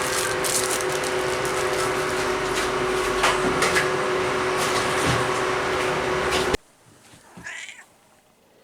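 Steady machine whirring with a constant hum and scattered clicks, cutting off suddenly about six and a half seconds in; a short faint sound follows in the quiet.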